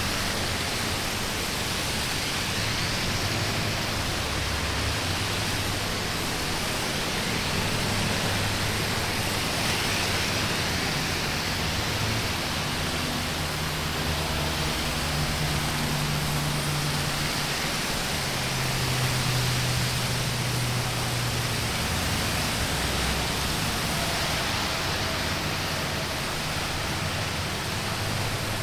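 Steady traffic on a wet highway: a continuous hiss of tyres on wet road, with low engine hums of passing vehicles swelling and fading.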